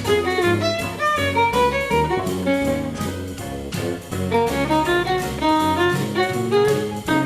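Background music: an upbeat instrumental with a fiddle-like melody over bass and guitar, playing at a steady level.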